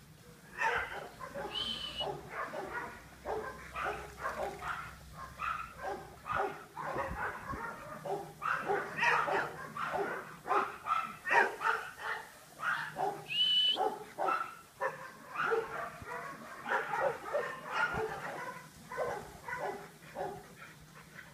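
Boxer dogs barking over and over, many short barks in quick succession with little pause, plus two brief high squeaks.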